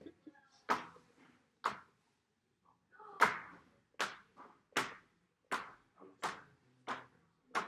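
An ink-covered ball struck again and again against paper on a wall, making short thuds, about nine in all. Two come in the first two seconds, then one roughly every three-quarters of a second from about three seconds in.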